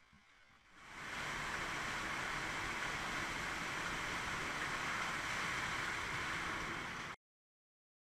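Water slide's rushing water, steady and splashing, as a rider comes down into the run-out lane; it swells in about a second in and cuts off abruptly near the end.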